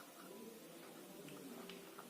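Near silence: faint room tone with a couple of light clicks.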